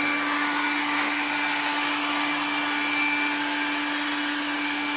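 Household hair dryer running steadily, a rush of air over a steady motor hum, warming the dented door metal.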